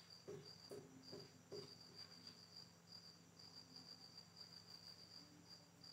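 Faint, steady high trill of a cricket with short breaks, and a few soft strokes of a marker writing on a whiteboard in the first second and a half.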